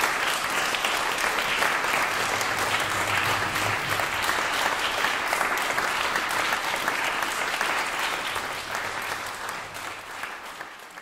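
Audience applauding steadily, the clapping thinning out and fading away near the end.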